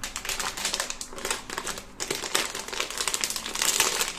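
Plastic packaging bag crinkling as hands handle and begin to open it: a dense run of crackles with a short lull about two seconds in.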